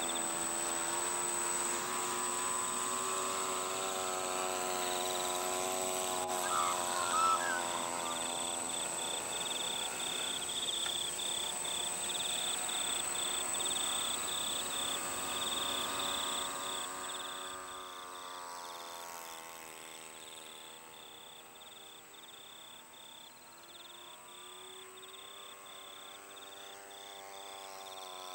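Small electric quadcopter's four brushless motors and propellers buzzing as it hovers and drifts, the pitch wavering up and down as the motor speeds keep adjusting; it grows quieter about two-thirds of the way through and louder again near the end. A steady high-pitched insect trill runs underneath.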